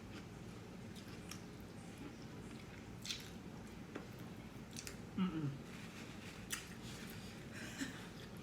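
Close-up wet chewing and mouth smacks from eating sauced lobster tail meat: scattered short clicks and squishes. About five seconds in there is a brief low vocal murmur that falls in pitch.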